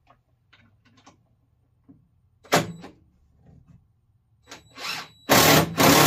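A few light knocks and one louder clunk from handling the work, then a power drill runs in a short burst about five seconds in and starts again just before the end, driving a screw into the wooden stand.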